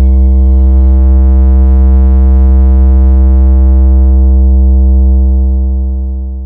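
A very loud, deep synthesized bass note held for several seconds in a hard-bass DJ sound-check track, with a steady stack of overtones above it, fading out near the end.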